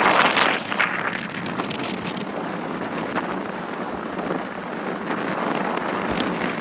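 Strong wind buffeting the microphone, loudest in a gust at the start and then steady.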